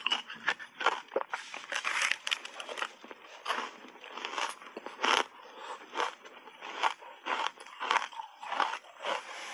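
Crunching and chewing of reshaped crushed ice coated in matcha powder, bitten off a large slab: a run of irregular sharp crunches, the loudest about five seconds in.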